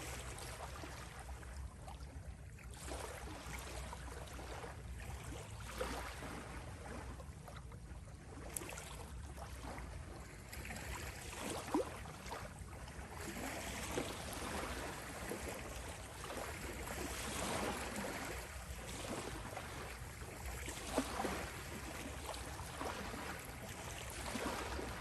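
Ocean water ambience: water sloshing and washing in slow swells over a steady low rumble, with a few sharp splashes or drips.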